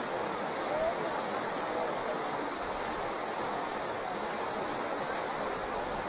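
Steady rush of whitewater rapids on a large river, the Vuormankoski rapids of the Iijoki.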